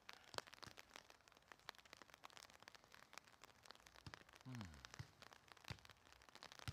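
Mostly near silence with faint crackling, broken by a few sharp knocks of a soccer ball being kicked and headed, and a short low falling vocal sound about four and a half seconds in.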